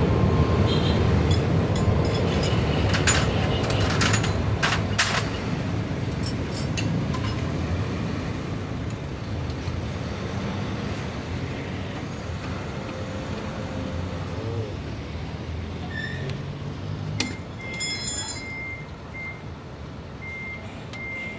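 Low rumble of a heavy vehicle's engine that slowly fades away, with a few sharp clicks a few seconds in. About three-quarters of the way through, a truck's reversing beeper starts, sounding a steady series of high beeps.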